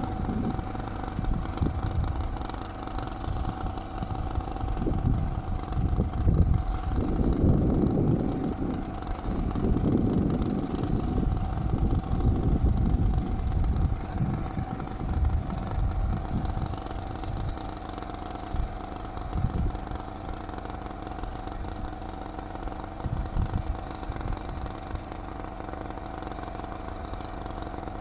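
Tractor engine running, louder and uneven through the first half, then settling to a quieter, steadier run from about two-thirds of the way in.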